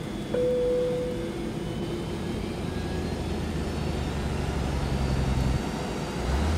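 Steady low drone of jet aircraft engines at an airport, with a short higher tone about half a second in; the low hum shifts in pitch near the end.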